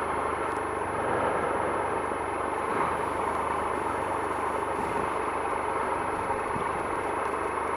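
Triumph Explorer XCa 1215cc three-cylinder engine idling steadily with the bike at a standstill.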